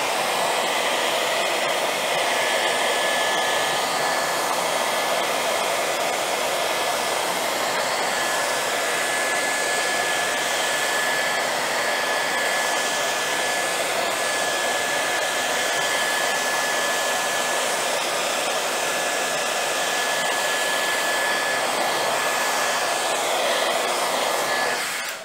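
Handheld hair dryer blowing steadily on wet water-based paint to dry it to a matte finish. A thin, steady whine rides on the rush of air, and the dryer is switched off right at the end.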